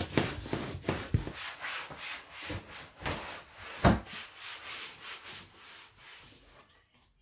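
A cloth rubbing over the painted metal panels of a laundry appliance in quick back-and-forth wiping strokes, with one louder knock about four seconds in; the strokes fade out near the end.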